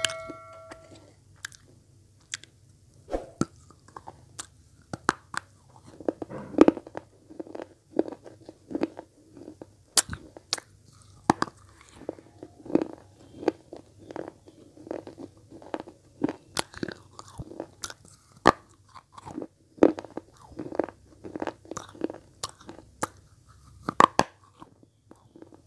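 Red slate pencil blocks being bitten and chewed right at an earphone microphone held to the mouth: sharp crunchy snaps as pieces break off, with grinding chews in between, repeating irregularly.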